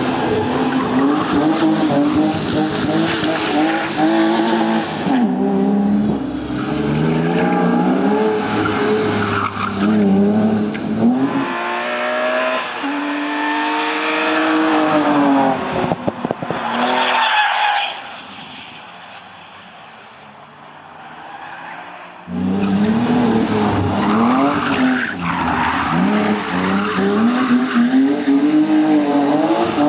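BMW 328 (E36) 2.8-litre straight-six engine revving hard, its note rising and falling as it is driven through tight turns, with tyres squealing and skidding. Past the middle the sound drops away for about four seconds, then the engine and tyres return.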